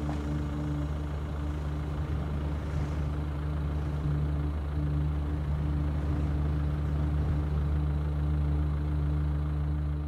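A steady low hum of held low tones, a little louder from about four seconds in.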